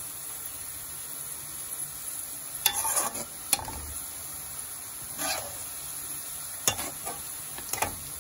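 Sliced onions frying golden brown in hot oil, a steady sizzle, with a metal slotted spoon scraping and knocking against the steel pan several times as the fried onions are scooped out.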